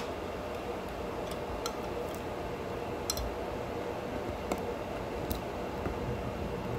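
A few sharp light clicks at irregular intervals, from long acrylic nails tapping against a ceramic mug and its silicone stretch lid as the lid is worked over the rim, over a steady background hum.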